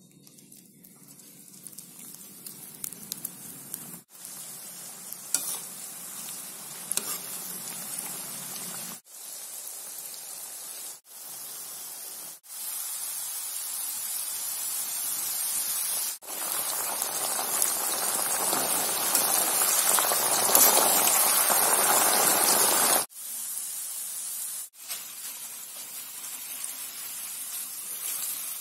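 Strips of raw jackfruit sizzling as they deep-fry in hot groundnut oil, a steady crackling hiss broken by several abrupt cuts. The sizzle grows loudest in the middle stretch, after salt water is sprinkled onto the frying chips.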